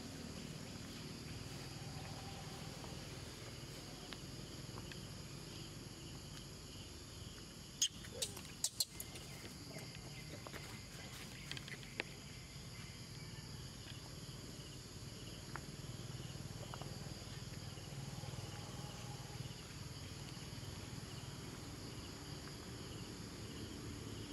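Steady insect chorus, several high-pitched trills droning together over a low background hum. A few sharp clicks cut through about eight seconds in, with a couple more shortly after.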